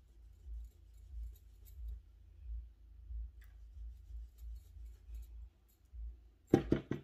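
Faint, scratchy strokes of an angled makeup brush sweeping powder bronzer across the skin, under a soft low thump repeating about every two-thirds of a second. Near the end comes a brief, louder voice sound in three quick pulses.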